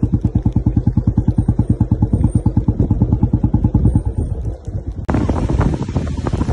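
Motorcycle engine running close by with an even putter of about a dozen firing beats a second, which falters about four seconds in. The sound then switches abruptly to a motorcycle riding along with a rushing hiss of wind and road.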